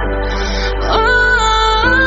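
Background music: sustained, gliding melodic notes over a steady low drone, with a pitch step about a second in.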